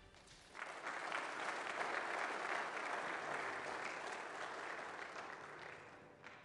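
Congregation applauding in a church sanctuary. The clapping starts suddenly about half a second in and slowly dies away near the end.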